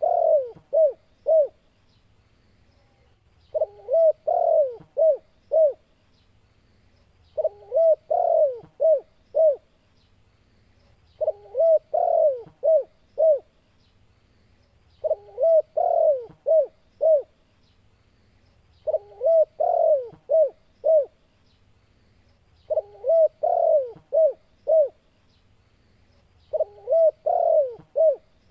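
Spotted dove (tekukur) cooing: a phrase of about five coos, repeated about every four seconds with short pauses between.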